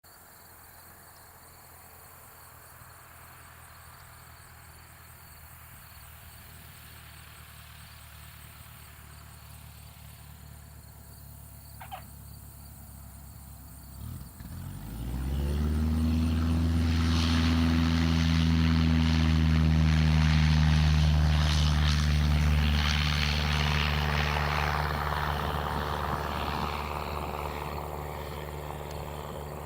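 Cessna 172's piston engine and propeller: faint and slowly growing louder as the plane comes in, then throttled up sharply about halfway through to full takeoff power for the go. It stays loud for several seconds, then fades as the plane climbs away.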